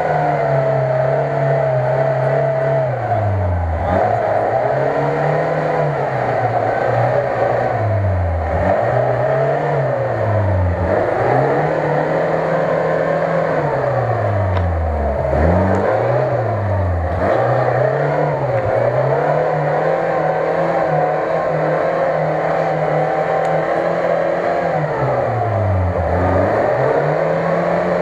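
Lada Niva VAZ-2121's four-cylinder petrol engine revving again and again as the stuck car strains in deep mud, the revs rising and falling every couple of seconds. Near the end the revs are held high for several seconds before dropping once more.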